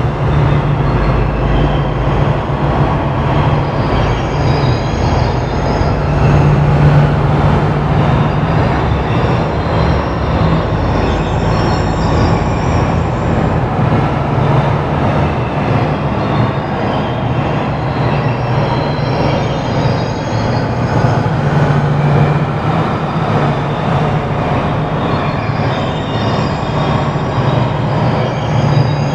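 Electronic ambient soundscape: a dense, steady rumbling noise like a train passing, over a low sustained hum, with faint high whistling tones drifting in and out.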